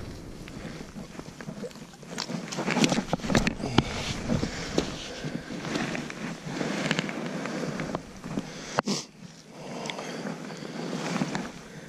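Irregular scuffing, rustling and clicking: an angler in waders stepping on wet beach sand and handling a landed silver salmon, with clothing brushing against the body-worn camera. There is one sharp knock about nine seconds in.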